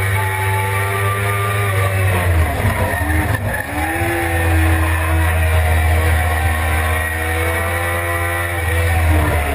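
Suzuki GSX-R600 inline-four engine heard from onboard over wind rush, running at high revs. About two seconds in the revs drop and wobble as the bike brakes hard for a corner and changes down. Then the engine pulls back up and holds high revs as it accelerates out, with a drop in revs near the end.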